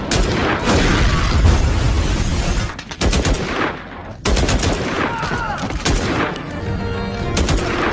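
Rapid automatic fire from an assault rifle in a movie shootout, in repeated bursts, with a short lull about four seconds in.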